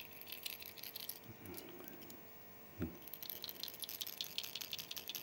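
Rattle inside a Strike Pro Inquisitor MDR 80SP hard-bodied wobbler clicking quickly as the lure is shaken in a hand, the sound slightly muffled by the palm. A short pause and a soft knock come near the middle.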